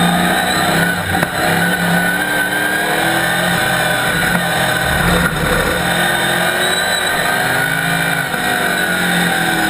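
Chevrolet Camaro race car's ZZ4 small-block V8 heard from inside the cockpit under racing load, its note rising and falling as the driver works the throttle, with brief dips about a second in and near the end.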